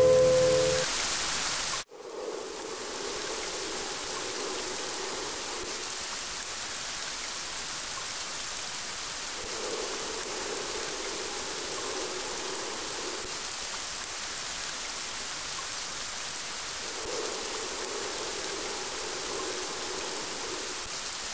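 Steady rain falling, an even hiss with no rhythm, taking over after the last musical note fades and cuts off about two seconds in.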